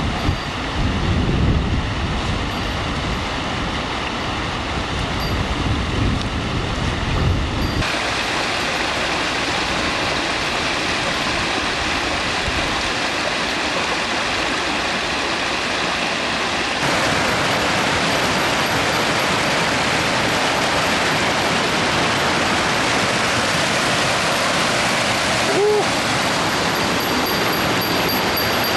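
Rushing mountain stream pouring over rocks and small cascades: a steady, loud rush of water. Its character shifts suddenly about eight and seventeen seconds in, with more low rumble in the first part.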